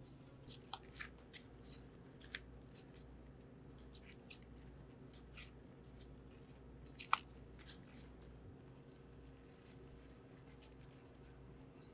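Green onions being cleaned by gloved hands: irregular crisp snaps and rustles as outer skins are peeled off and stalks are handled and laid in a plastic basket, with one sharper click about seven seconds in. A steady low hum runs underneath.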